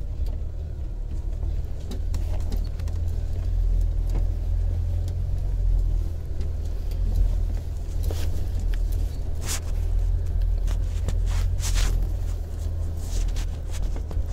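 Low steady rumble of a car's engine and tyres heard from inside the cabin while driving slowly on a snow-covered road, with a few short sharp crackles from about eight seconds in.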